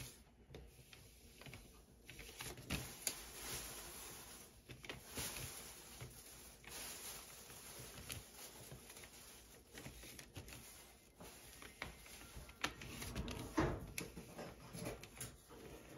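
Faint scratching and light taps of an electric wax-painting stylus drawn across a wax-painted card, with the card shifting on paper; a slightly louder cluster of scrapes comes near the end.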